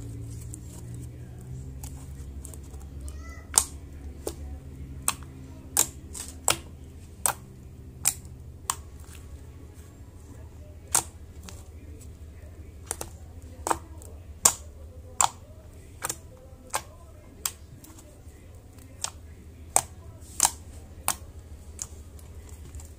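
Fluffy glitter slime made from shampoo being pressed and poked by fingers, giving irregularly spaced sharp pops and clicks, about two dozen, as trapped air pockets burst; they begin a few seconds in. A steady low hum lies underneath.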